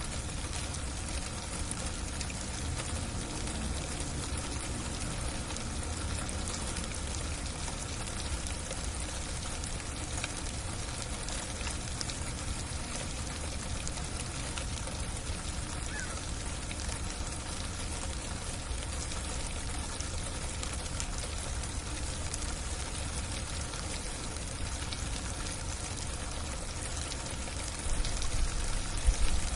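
Heavy freezing rain falling steadily, a dense, even hiss of drops with no pauses. A few louder low rumbles come near the end.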